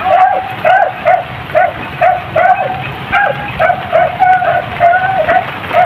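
Hunting dogs barking steadily on a chase, about two to three barks a second with no let-up, as the pack keeps after its quarry.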